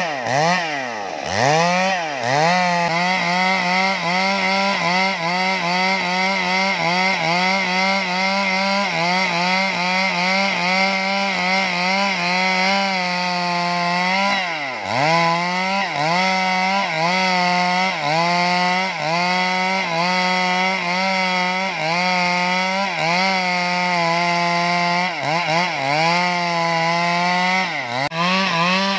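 Stihl 382 two-stroke chainsaw at full throttle, ripping lengthwise along a log. Its engine note wobbles down and back up in a quick regular pattern as the chain bites, and the revs drop sharply and recover near the start, about halfway through, and again near the end.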